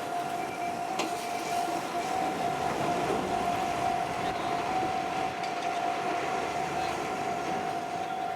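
Train running past a level crossing, a steady rolling rumble with a few light clicks, over one steady high tone held throughout.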